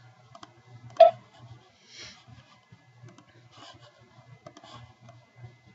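Computer mouse clicking while a CAD assembly is being worked on: one sharp click about a second in, then scattered faint clicks over a low steady hum.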